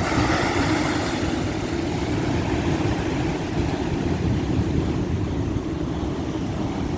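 Ocean surf at high tide: a continuous low rumble of waves, with a brighter hiss of breaking water in the first second.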